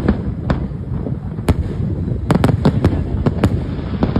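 Fireworks going off: sharp bangs at irregular intervals, several in quick succession around the middle, over a continuous low rumble of more distant bursts.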